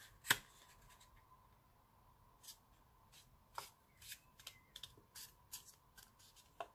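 Hands folding and creasing a piece of textured cardstock: faint scattered paper rustles and small crackling ticks, with one sharper tick just after the start.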